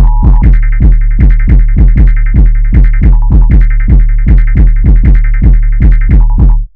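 Jersey club beat built from Emergency Alert System samples: fast, even kick drums, about four a second. Over them are chopped stretches of the EAS data-burst squeal and short blips of the two-tone alert signal. The beat cuts off suddenly near the end.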